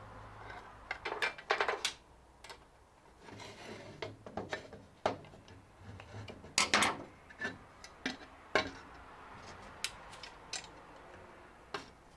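Scattered metallic clicks, knocks and brief rattles as a cam lock is handled and worked in a metal cupboard door, with the loudest cluster a little past halfway.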